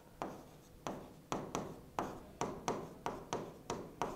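Pen tapping and scraping on the surface of an interactive touchscreen whiteboard as handwriting is written: a string of sharp taps at uneven spacing, about three a second.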